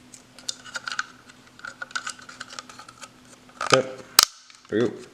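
Small plastic relay housing being handled and snapped back together: a run of light, irregular plastic clicks and taps, with two sharper snaps a little before the end.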